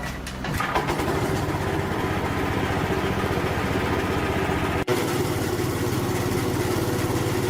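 Restored motorcycle's small engine, idling at first, revved up about half a second in and held at high speed. It drops out for an instant about two-thirds through.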